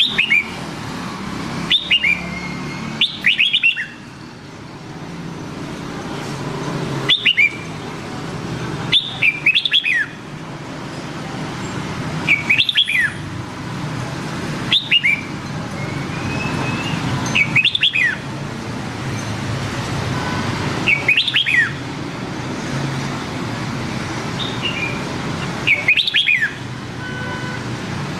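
Red-whiskered bulbul singing: short, quick whistled phrases with falling notes, repeated every two to three seconds over a steady low background rumble.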